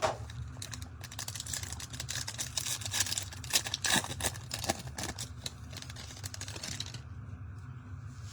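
Trading card packs and cards being handled: a sharp click, then a few seconds of irregular crinkling and clicking rustle that dies down near the end.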